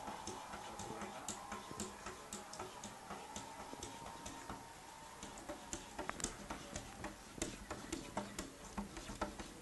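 A cat's claws clicking and scraping on window glass as it paws at the pane, in irregular clicks, two or three a second, sharper and louder from about six seconds in.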